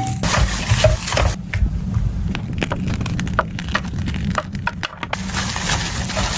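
Slime being squeezed and pressed by hand, giving a run of small crackling clicks and pops over a low rumble.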